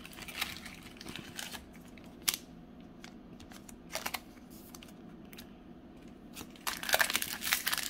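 Trading cards and packaging being handled, with scattered light clicks and rustles. About seven seconds in, a foil booster-pack wrapper starts crinkling densely and loudly.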